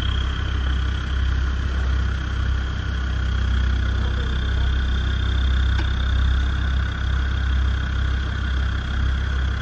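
Land Rover Discovery's engine running low and steady as the 4x4 crawls slowly over uneven ground, with a steady high whine above the engine note.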